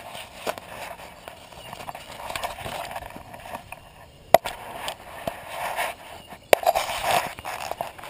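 Footsteps on pavement and jacket fabric rubbing against a body-worn camera, with two sharp knocks, a little past halfway and again later.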